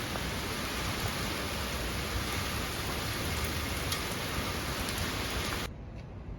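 Heavy rain pouring steadily during a typhoon, an even hiss with scattered drop ticks, cutting off suddenly near the end.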